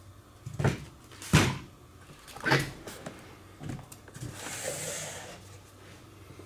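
Foam RC airplane parts and their plastic stands being handled on a worktable: four light knocks about a second apart, the second the loudest, then a brief soft rubbing of foam.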